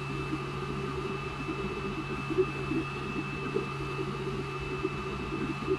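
Creality Ender 5 S1 3D printer running a print: a steady fan hum with a faint high whine, over which the stepper motors chirp in short, constantly changing pitches as the axes move.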